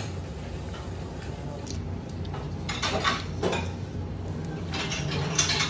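Dishes and cutlery clinking and clattering on a table, a few short clatters in the middle and again near the end, over a steady low hum.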